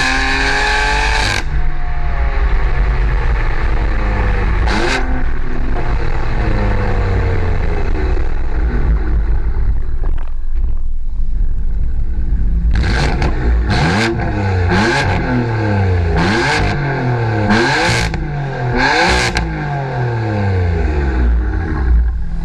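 BMW F82 M4's twin-turbo straight-six, breathing through an ARMYTRIX cat-back exhaust, revving. Its pitch rises and falls, then in the second half comes a run of about six quick blips, each with a short sharp burst.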